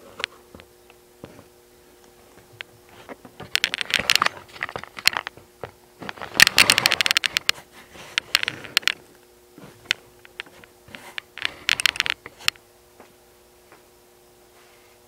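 Bursts of close crackling and clattering handling noise, loudest about halfway through, over a faint steady electrical hum.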